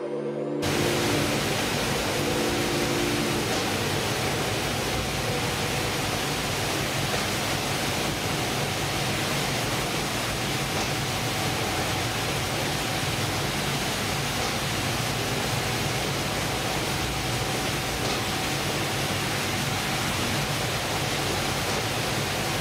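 Steady, even noise of a ship's fish-processing line running, with a faint steady hum in it; it starts abruptly about half a second in.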